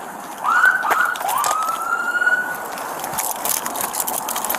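A police car siren starting up: two rising wails, the second held steady for about a second, over the clatter of footsteps on pavement.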